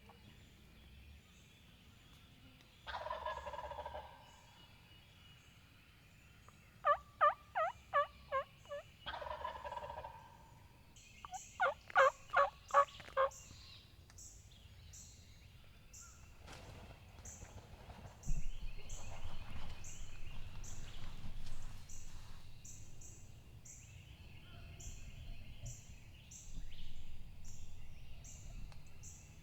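Turkey calling: drawn-out calls and two quick runs of loud, evenly spaced yelps, with gobbling, over faint songbird chirps. Later a rustling noise sets in.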